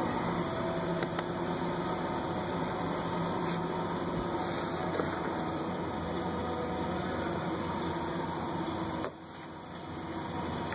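Steady mechanical hum and whir, like a fan or blower running. It drops suddenly about nine seconds in, then slowly builds back.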